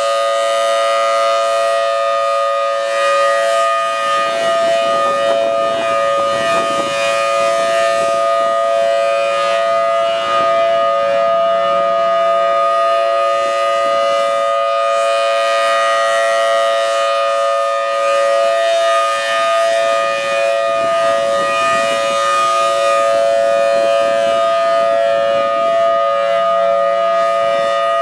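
Federal Signal Thunderbolt 1000T rotating outdoor warning siren sounding a steady tone, its pitch holding level throughout. The sound brightens about five seconds in and again about twenty seconds in as the turning horn sweeps round.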